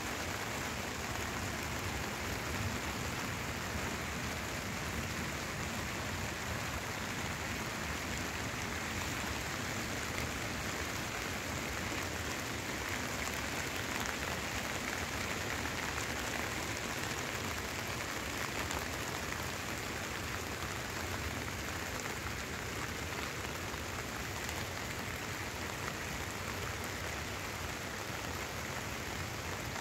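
Steady rain falling on a tarp shelter and the wet ground around it.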